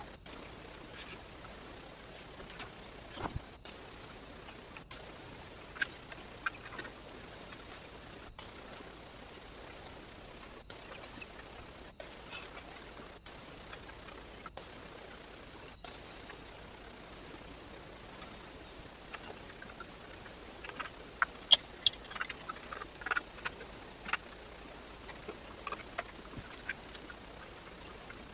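Steady hiss from a trail camera's microphone, with scattered short clicks and taps. A cluster of louder, sharp taps comes about three quarters of the way through.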